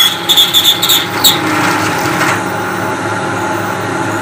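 Webb 3-horsepower milling machine's end mill biting into a piece of aluminum at about 2,000 RPM: a high-pitched screech in several short bursts over the first second or so, then the spindle running steadily.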